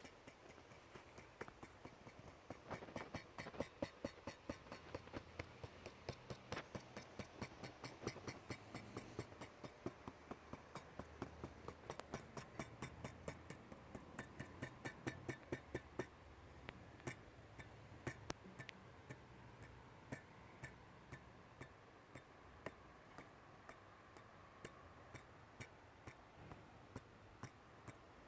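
Quiet, irregular clicking from a MacBook Pro with Touch Bar being typed on and clicked, two to three clicks a second, thinning out after about 16 seconds. These are the annoying noises the owner hears whenever the keyboard or trackpad is used.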